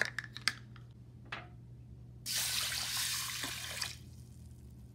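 A few light clicks and taps against a metal pot, then about two seconds in, water runs into the pot of dry basmati rice for about a second and a half and tails off.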